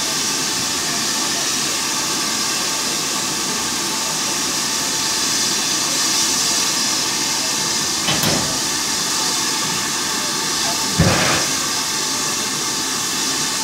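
BR Standard 9F 2-10-0 steam locomotive standing with a steady hiss of steam. Two short, louder blasts of steam come about eight and eleven seconds in, as steam begins to escape around the driving wheels from the cylinder drain cocks.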